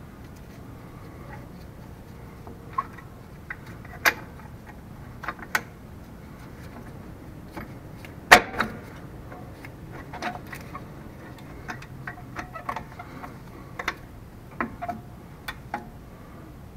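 Scattered light metal clicks and clinks of rear drum-brake hardware (shoes, return springs, adjuster and cable) being handled and fitted on the backing plate of a 1981 K5 Blazer, with one sharper clank about eight seconds in.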